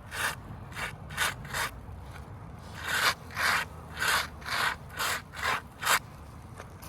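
Gloved hand swiping across asphalt roof shingles: about eleven short brushing strokes, a run of four, a pause, then seven more, ending about a second before the close. The strokes knock loose granules off the shingle surface to show whether crease lines from the repair have formed.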